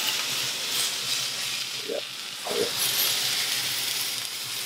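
Chicken breast pieces sizzling steadily in a hot frying pan while being turned with a wooden spatula. The meat is nearly cooked through.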